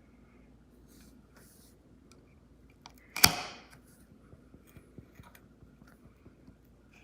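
One sharp click about three seconds in, trailing off in a short fading rasp, among a few faint small handling clicks.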